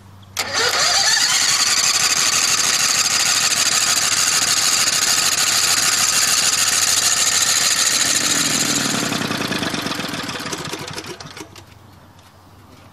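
Old reclaimed lawnmower engine, fed with biogas, catching with a quick rise in pitch and running steadily for several seconds, then slowing with a falling pitch and dying near the end. It will not stay running on the biogas; the engine is too old and worn.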